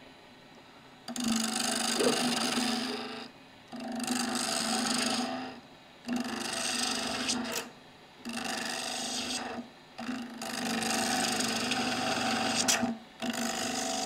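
Gouge cutting a spinning wood blank on a lathe, turning a rounded profile: six passes of one to three seconds each with short pauses between. Each pass is a rough scraping cut with a low steady hum under it.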